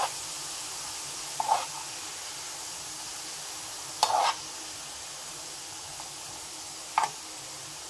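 Grated beetroot sizzling in a pan over a medium flame, a steady frying hiss. A spatula scrapes through it in four short strokes, the loudest about halfway through.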